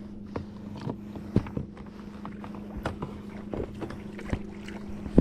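Scattered knocks and clicks of a fish and gear being handled on a kayak, over a steady low hum, with one sharper knock at the very end.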